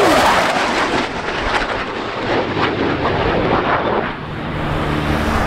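Military fighter jet's engines roaring in a low pass, the pitch falling sharply about as the jet goes by at the start.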